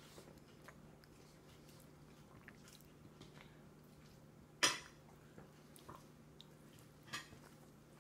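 A toddler eating with her fingers: small wet mouth clicks while chewing, with a sharp loud smack about halfway through and another near the end. A faint steady hum runs underneath.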